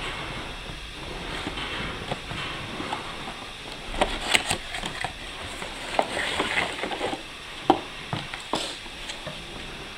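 A cardboard box being handled and opened by hand on a wooden table: card rustling and scraping, with scattered sharp taps and knocks, the loudest from about four seconds in onward.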